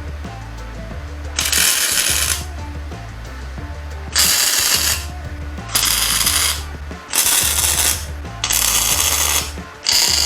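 Welder laying short tack welds: six separate bursts of crackling hiss, each about a second long, with pauses between. Background music with a steady bass runs underneath.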